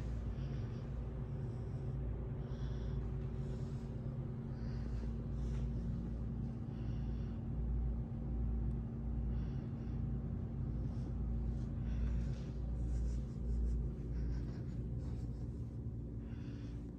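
Handling noise from a phone carried through empty rooms: a continuous low rumble under a faint steady hum, with soft rustles every second or two.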